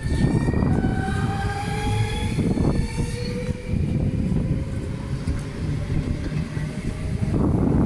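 NS double-deck electric train moving close by, its wheels rumbling on the rails while its traction motors whine in several tones that rise slowly as it gathers speed.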